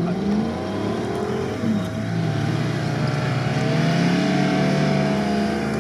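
Engines of off-road vehicles running in loose sand, their pitch slowly rising and falling as they are driven.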